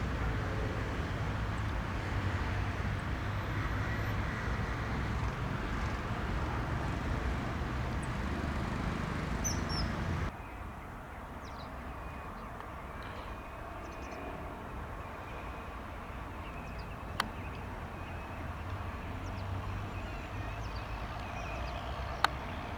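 Outdoor ambience: a steady low rumble that drops off suddenly about ten seconds in, with faint bird chirps and two sharp clicks in the quieter second half.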